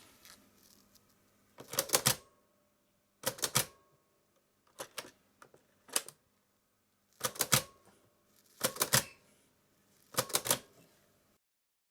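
Six short clusters of sharp mechanical clicks and clacks, each a quick rattle of several hits, spaced about one to one and a half seconds apart.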